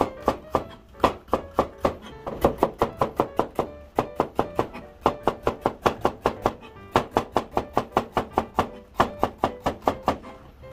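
Kitchen knife slicing bitter melon thin on a cutting board: quick, even strokes, about five a second, in runs with short breaks. Background music plays under it.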